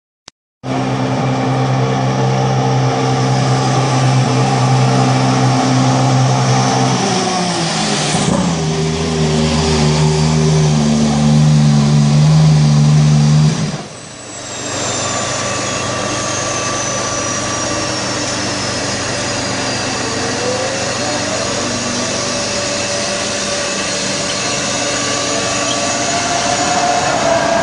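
Ferrari turbo V6 engine of a 2014 Sauber Formula One car running at a steady pit-lane speed, its note dropping in pitch about eight seconds in. It cuts off about halfway through, leaving a quieter steady hum with a thin high whine that slowly falls.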